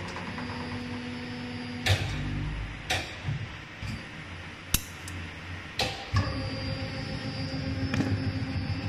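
CLF-300 servo-hydraulic injection molding machine running: a steady hum that shifts in pitch a couple of times, broken by about five sharp clunks of the moving machine parts.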